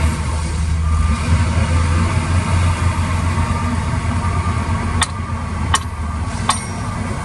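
Heavy machinery's diesel engine running steadily with a low rumble. Near the end come three sharp knocks, each about three-quarters of a second apart; the last one rings briefly like metal.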